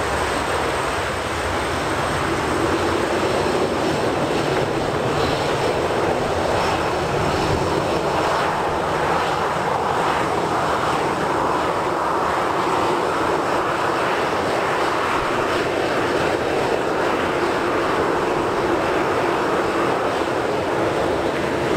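Boeing 737-800's CFM56-7B jet engines running at taxi power, a steady jet noise as the airliner rolls slowly past on the taxiway. It grows a little louder about two seconds in.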